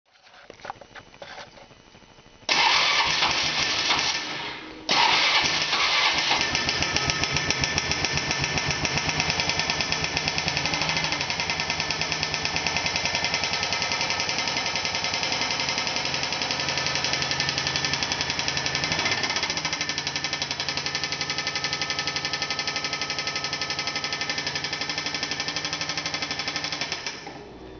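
Polaris Trail Boss 325 ATV engine turning over faintly, catching about two and a half seconds in, faltering and catching again near five seconds. It then runs with a loud, rapid, steady knock until it is shut off near the end. The knock is the sign of a bad internal engine fault.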